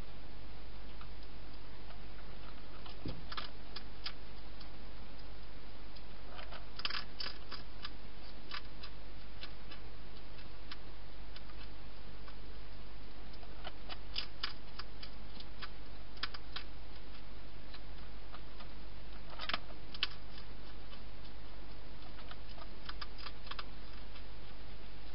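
A hedgehog eating from a bowl, its chewing heard as scattered clusters of short crisp clicks and crunches, over a steady low hum.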